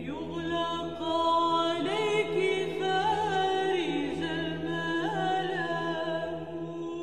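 Vocal music: singing voices holding long, slowly moving notes in a chant-like style over a steady low drone.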